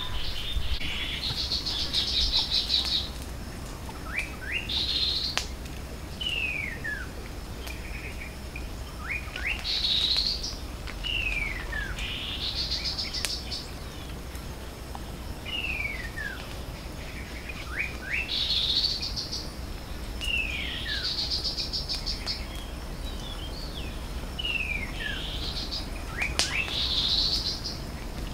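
Birds calling, with short downward-sliding whistles alternating with rapid trilling phrases, repeating every few seconds.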